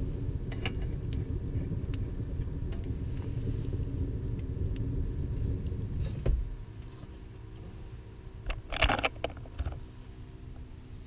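A low rumble for about six seconds that stops with a thump, then a quieter steady low hum. Near the end comes a quick cluster of metal clicks and clinks as a hand works the door latch of a small wood stove.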